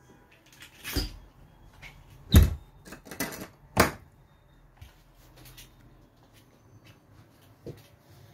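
A handful of dull knocks and thumps in the first four seconds, the loudest about two and a half seconds in, and one faint knock near the end.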